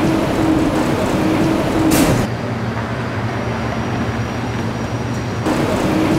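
Escalator machinery running with a steady mechanical rumble and a recurring hum. About two seconds in, the sound cuts abruptly to a quieter, even low hum, and the rumble comes back near the end.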